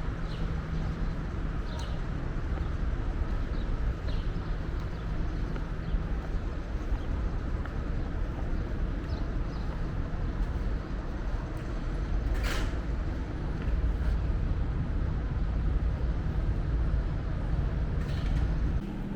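Steady rumble of city street traffic, with a vehicle engine running and growing louder for a few seconds near the end.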